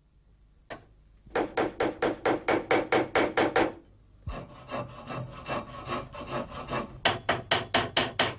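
Small hammer tapping nickel-silver handle fittings on a small anvil, about five quick blows a second. The taps pause briefly about halfway through, come softer for a while, then strike harder again near the end.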